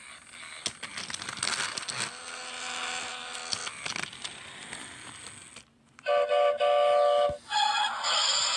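A steam train whistle blows a held, multi-toned chord about six seconds in, followed by a loud, hissing blast. Before it there is a softer, rushing train noise.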